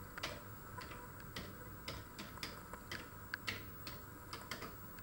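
Keys being typed on a Commodore 64 keyboard: separate short clicks at an uneven pace of about three a second.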